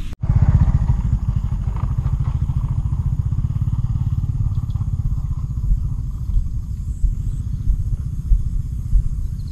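Small motorcycle engine running at a steady pace, with a fast, even low pulsing, starting just after a brief dropout at the start.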